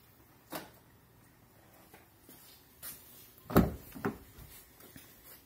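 Clicks and clunks from a car door: a light click about half a second in, then a loud clunk about three and a half seconds in and a second one half a second later.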